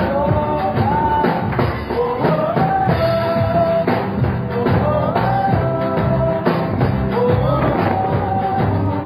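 Background music: a song with a sung melody over a band with a steady drum beat.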